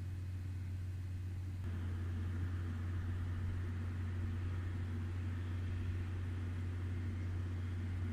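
Steady low hum of a stationary Chichibu Railway 7800 series electric train's onboard equipment. Nearly two seconds in, a wider hiss and a faint steady tone join it.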